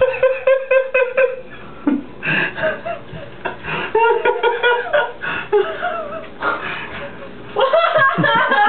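People laughing and giggling, with wordless vocal noises.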